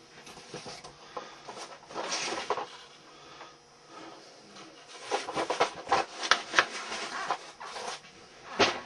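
Irregular rustling and clicking of small objects being handled and moved around on a desk, busiest in the middle stretch, with one sharp click near the end.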